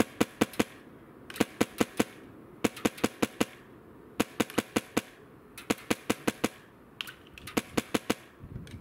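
Arcturus HK416 airsoft rifle running on high-pressure air, firing quick strings of sharp pops, about four to six shots per string with short pauses between.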